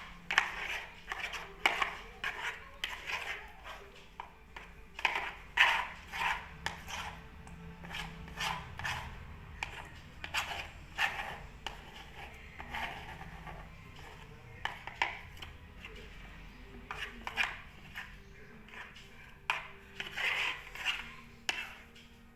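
Slime mixture being stirred in a bowl: the stirring utensil clicks, knocks and scrapes against the bowl in irregular strokes, a few each second.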